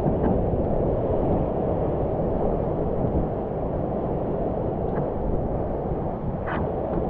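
Wind buffeting the microphone over the rush of moving water and whitewater as a SUP foil board rides a breaking wave, with a few brief splashes, the last about six and a half seconds in.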